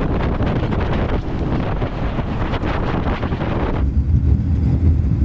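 Wind rushing over a camera mounted outside a moving 1996 Ford F350 pickup, over the low rumble of its 7.3 L Powerstroke diesel and road noise. Near the end the sound switches to inside the cab: a steady low drone of engine and road.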